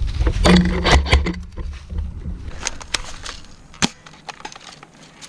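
Footsteps crunching through dry leaves and twigs in brush, with heavy rumble from movement on the microphone for the first second and a half. After that come quieter scattered crackles and one sharp snap near four seconds in.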